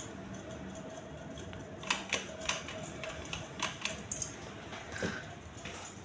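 Ceiling fan motor running with a steady hum. In the middle comes a short run of irregular sharp clicks, and there is a softer knock about five seconds in.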